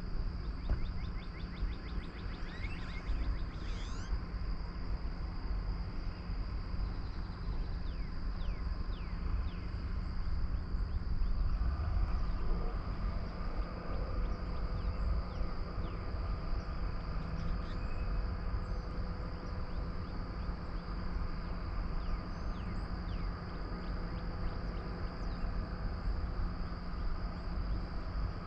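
Outdoor ambience: insects droning steadily at a high pitch, with birds chirping briefly near the start and again a few seconds later, over a constant low rumble.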